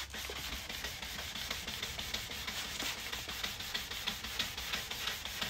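Wet sandpaper rubbed by hand over an oxidized plastic headlight lens in quick, even back-and-forth strokes, a soft gritty scratching as the yellowed outer layer is sanded off.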